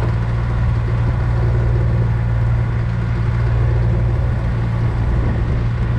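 A vehicle engine running steadily at a low, even pitch while driving, with a steady hiss over it.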